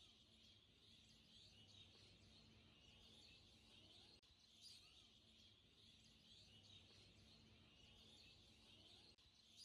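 Near silence, with faint high chirping like small birds in the background and a faint steady hum.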